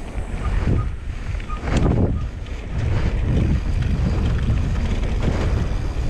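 Wind rushing over the camera microphone as a Canyon Spectral 29 mountain bike rides a trail, with a steady tyre rumble and several sharp knocks over bumps, the strongest about two seconds in.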